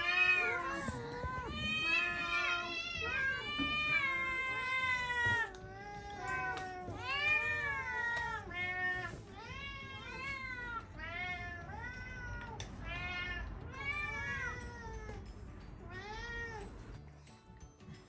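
Domestic cat meowing over and over, about one meow a second, each call rising and then falling in pitch, while begging for food. The meows thin out and stop near the end.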